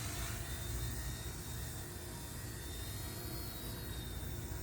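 Firefox C129 micro RC helicopter in flight: its electric motor and rotor give a steady high whine that wavers slightly in pitch, over a low rumble.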